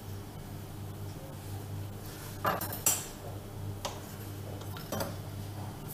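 Kitchenware being handled on a countertop: four short clinks and knocks, the loudest about three seconds in, over a steady low hum.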